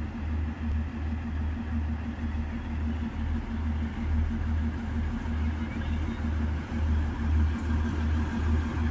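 Matheran toy train's narrow-gauge diesel locomotive running as it approaches slowly, its engine giving a low, pulsing throb of about two beats a second over a steady hum, growing slightly louder near the end.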